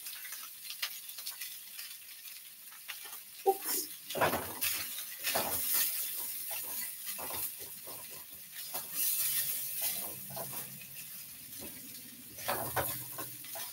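Spatula stirring and scraping rice in a hot wok, with irregular short scrapes and taps against the pan and a faint sizzle.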